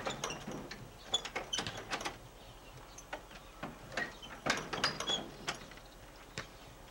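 Irregular knocks, clicks and short squeaks of hand work on an old wooden board gate as it is taken down.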